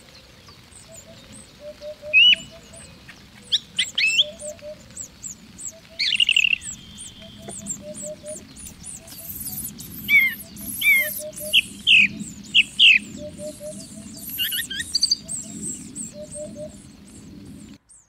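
Eurasian hoopoe calling its soft, low 'oop-oop-oop', short groups of three or four notes repeated all through. Louder, sharp high chirps and whistles of other small birds sound over it, most of them in a run about halfway through.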